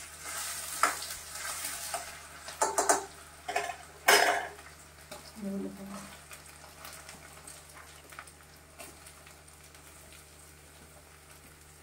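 Green chillies and onions sizzling in hot oil in a stainless-steel kadai, stirred with a steel spatula that knocks and scrapes against the pan several times, loudest about four seconds in. Through the second half the sizzling dies down to a low hiss as chopped onion and ridge gourd are tipped into the pan from a steel plate.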